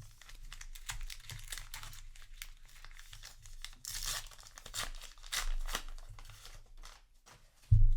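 Foil trading-card booster pack wrapper crinkling and being torn open, in a run of crackles. A short, dull thump near the end.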